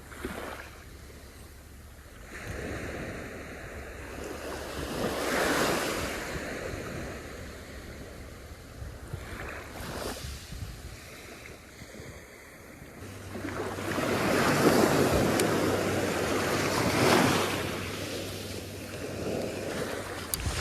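Ocean waves breaking on a sandy beach, the surf swelling and falling away several times, with wind buffeting the microphone.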